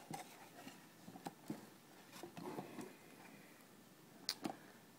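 Hands handling a wooden trading-card box and a sheet of paper: faint rustling with a few light clicks and taps, two close together about a second in and two more near the end.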